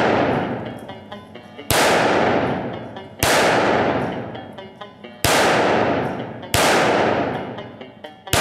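Five single shots from a CZ P-09 Kadet .22 LR pistol, fired slowly about one and a half to two seconds apart, each followed by a long echo that dies away.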